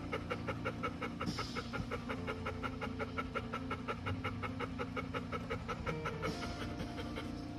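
Golden retriever in labor panting fast and evenly, short quick breaths in a steady rhythm, as she works through contractions ahead of a push.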